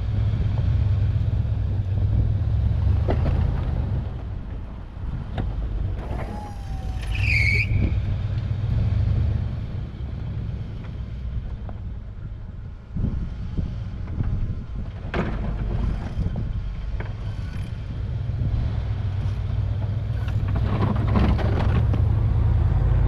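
Ford F-150 pickup's engine running as the truck plows snow, its rumble swelling and easing as it pushes and backs up. A brief high squeal comes about seven seconds in.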